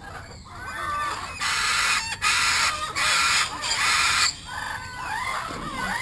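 Caged parrot giving four harsh screeches in quick succession, with a few faint chirps around them. The screeches are a fright call: the bird is frightened.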